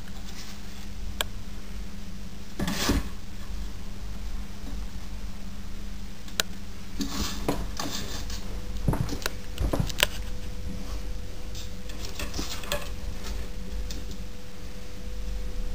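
Kitten's claws catching and scraping on wooden banister spindles as it climbs and paws at them: irregular clicks, taps and short scrapes. A louder knock comes about three seconds in and a cluster of them around ten seconds, over a steady low hum.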